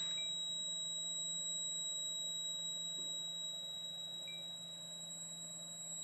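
A door-alarm circuit's buzzer sounding one steady, high-pitched tone without a break. The magnetic reed switch has detected the door opening while the alarm mode is on.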